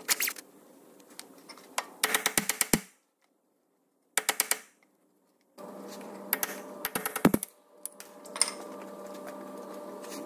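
Impact wrench hammering in several short bursts as it undoes the rusty ball-joint pinch bolt nut on a front suspension arm. A steady hum runs underneath in the second half.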